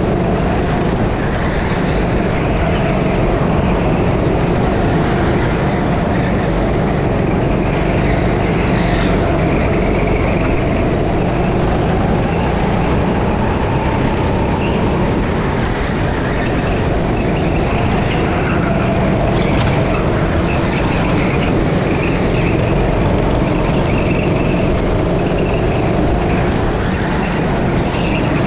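A Dino 6.5 hp rental kart engine running flat out in a race, heard onboard. Its note keeps rising and falling as the driver works the throttle around the lap.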